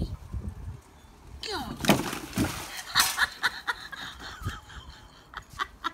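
A sudden crash and clatter, the loudest hits about two seconds and three seconds in, with a person's voice heard over it.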